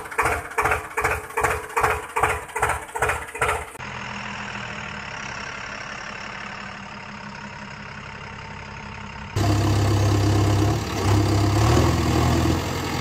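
Dubbed-in engine sound effects. A tractor engine chugs in regular pulses, about two and a half a second. Then comes a quieter steady engine idle, and from about nine seconds in a louder, deeper engine runs with small changes in pitch.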